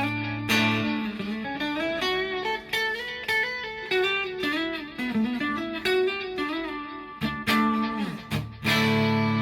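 PRS SE Custom 24 electric guitar playing a single-note lead line of picked notes with string bends. A sliding drop in pitch comes near the end, then a held chord that rings on.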